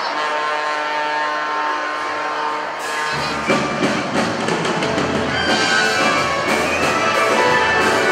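Orchestra of violins, clarinets, saxophones, brass and drum kit playing: a held chord for about three seconds, then the full band comes in with the drums.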